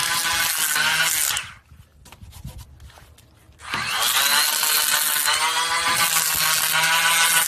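Bosch 12V cordless hand planer running and cutting pine, a steady high motor whine over the hiss of shavings. It stops about a second and a half in, leaving a couple of seconds of near quiet, then starts again with a rising whine and planes on.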